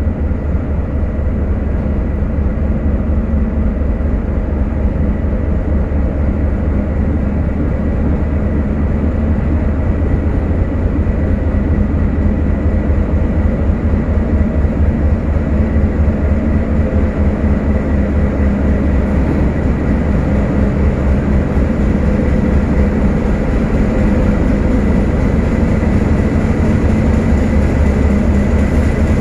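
Diesel locomotives D12E-649 and D11H-345 hauling a freight train: a deep, steady engine rumble that echoes in the rail tunnel, with a thin steady high whine over it, growing slowly louder as the train approaches.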